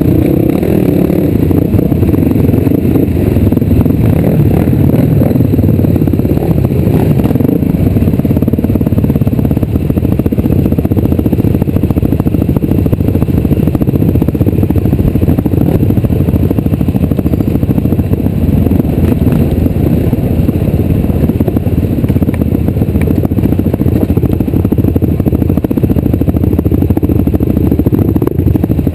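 A vehicle ridden over a rough trail: a loud, steady rumble with clattering and scraping.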